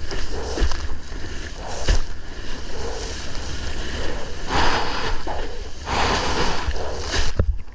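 Breaking waves and whitewater rushing and splashing around a surfer in the water, with wind noise on the microphone. The rush swells louder twice midway, with a few sharp knocks.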